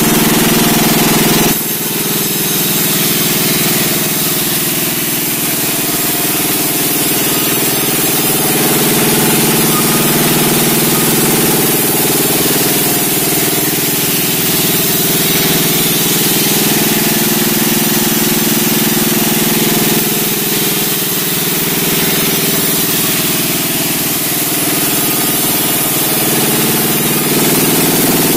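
Sawmill running steadily, its engine and saw going continuously while it cuts large timber.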